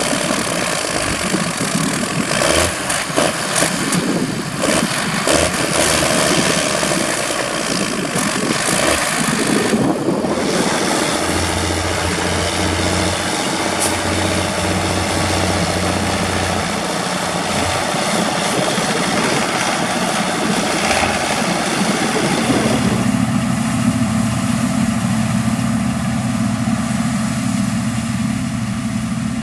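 Harvest machinery running with a heavy engine: rough, clattering machine noise for the first ten seconds, then a more even engine note, which settles into a steady, smoother drone about two-thirds of the way through.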